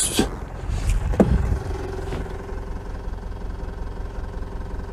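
Car engine idling: a steady low rumble with a steady hum over it. A single click about a second in.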